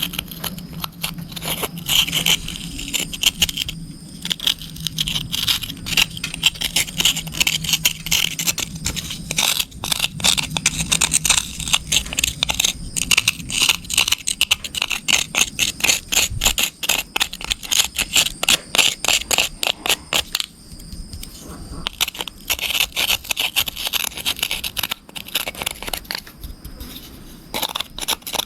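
Rapid, repeated scraping strokes as caked mud is worked off an RC car, with a brief pause about two-thirds of the way through.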